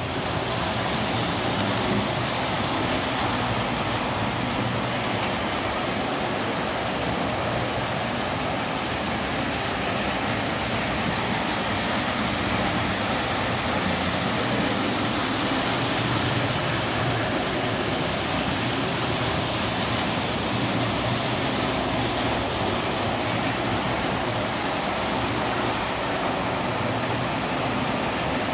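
Several model trains running together on a multi-level layout, a steady whir and rumble of motors and wheels on metal track.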